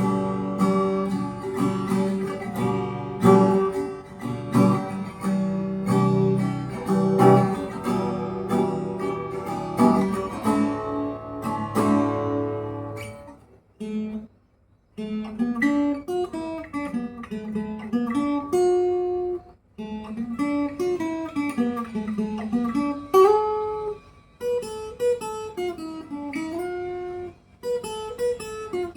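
Yamaha FSX80C acoustic-electric guitar being played: strummed chords for about the first half, a short pause, then a picked single-note melody that rises and falls.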